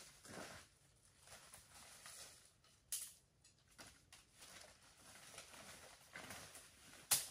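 Rustling leaves and footsteps on leaf litter as a person pushes through dense forest undergrowth. There are two sharp snaps: one about three seconds in and a louder one near the end.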